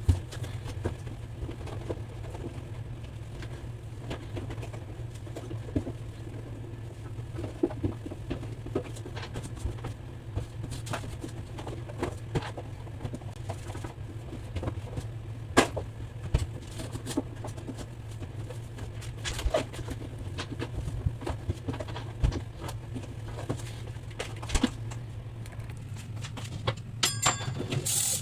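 Scattered light knocks and clicks, as of things being handled, over a steady low hum. A quick cluster of brighter clinking clicks comes near the end.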